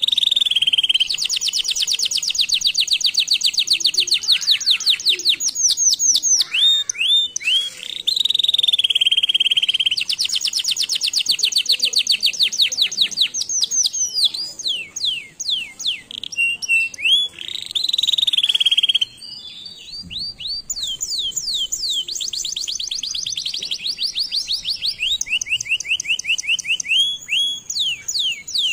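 Domestic canary singing a long song of fast rolling trills, each a rapid run of identical high notes, switching to a new trill every second or two, with some rising and falling sweeps. The song breaks off briefly about two-thirds of the way through, then goes on.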